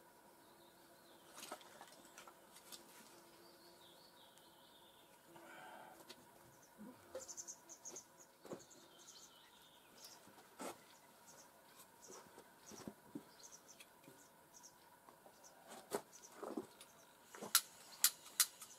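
Faint, scattered light clicks and taps, with a few sharper clicks near the end.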